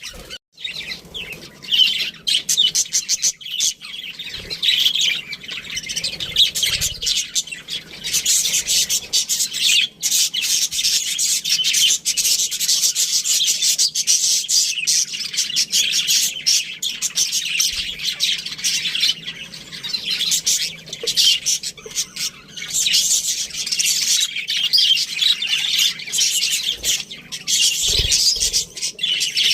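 A flock of budgerigars chirping and warbling continuously, a dense, high-pitched chatter of many overlapping calls.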